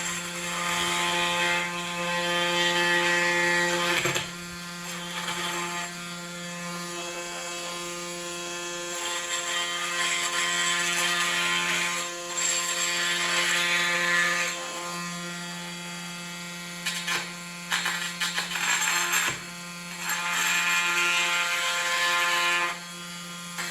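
Milwaukee oscillating multi-tool running with a steady buzzing hum, getting louder and noisier in three long stretches and a few short surges as the blade is worked into the piece.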